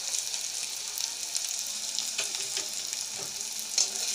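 Chopped onions, bay leaves and cumin sizzling gently in oil in a karahi on a low gas flame, with faint scattered crackles. A spatula knocks once against the pan near the end.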